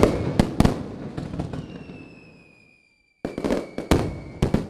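Fireworks sound effect: a volley of sharp bangs and crackles that thins out and fades. A moment of silence falls a little before three seconds in, then a second short volley of bangs follows. A thin whistle slides slowly down in pitch beneath the bangs.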